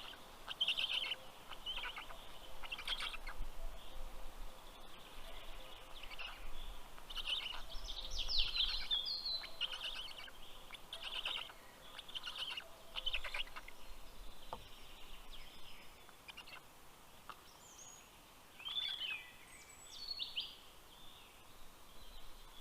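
Birds calling: a run of short, high, rapidly pulsed calls repeated every second or so, with a few short falling whistled notes near the end.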